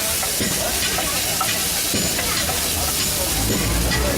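Chicken frying with a steady sizzle, with occasional clicks of a utensil against the pan.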